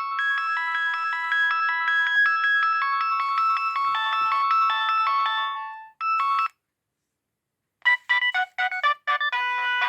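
Nokia 6610 polyphonic ringtones. One electronic melody of several simultaneous notes fades out about six seconds in, and a short half-second snippet follows. After a second or so of silence a different ringtone starts with quicker, choppy notes.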